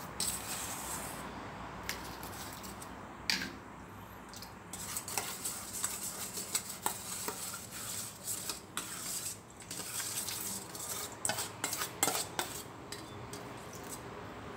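A metal spoon scraping and clinking against a stainless-steel bowl as lumps of palm sugar are scooped out and dropped into a wok of water, in irregular knocks and scrapes.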